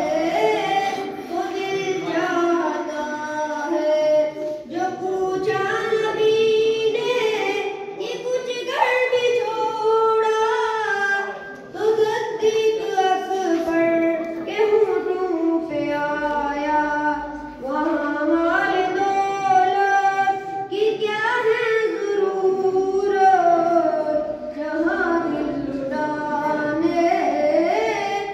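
Boys singing a naat, a devotional poem in praise of the Prophet, into a microphone. The melody has held, wavering notes, with short breaks between lines.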